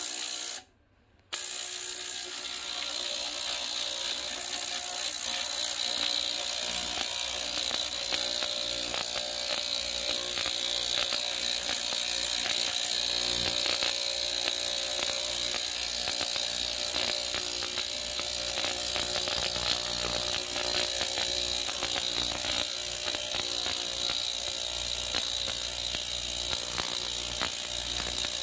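Small ultrasonic cleaner running with a sheet of aluminium foil in its bath: a steady high buzz with a dense fine crackle, cutting out briefly about half a second in and then running on evenly.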